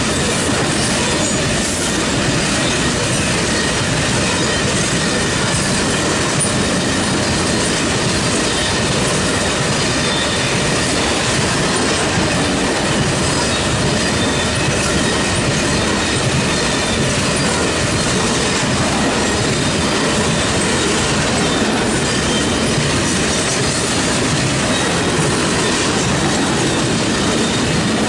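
Freight train rolling past, its wheels running on the rails in a steady, loud rumble and rattle.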